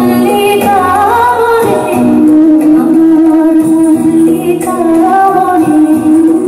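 Background music: a woman singing a melody with instrumental accompaniment, holding long notes from about two seconds in.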